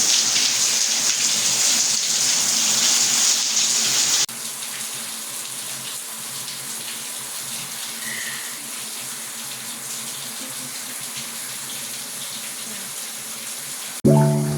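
Water running steadily from a tap, cutting suddenly to a quieter rush about four seconds in. A few notes of music come in right at the end.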